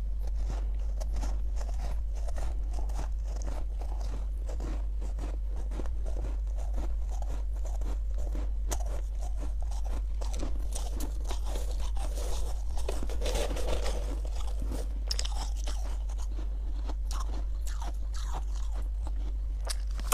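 Powdery freezer frost being bitten and chewed, with many quick crunches, over a steady low hum.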